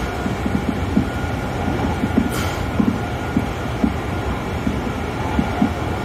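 Kintetsu electric commuter train running along the track, heard inside the passenger car: a steady rumble of wheels on rail with short, irregular knocks from the rail joints.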